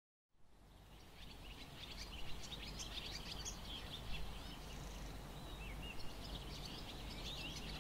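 Small birds chirping and twittering in quick, short calls over a steady low outdoor background rumble, fading in at the start.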